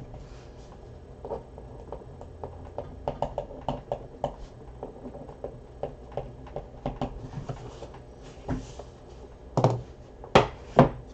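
Trading cards being handled: a run of soft clicks and taps, with a few louder knocks near the end.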